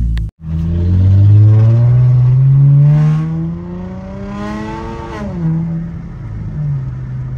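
Car engine heard from inside the cabin, accelerating with its pitch rising steadily for about five seconds, then dropping back as the transmission shifts up and running on at a steady lower pitch.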